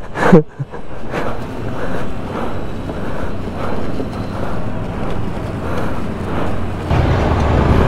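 Street traffic noise with wind buffeting the microphone, swelling and fading. About seven seconds in, a vehicle engine's low, steady rumble comes in.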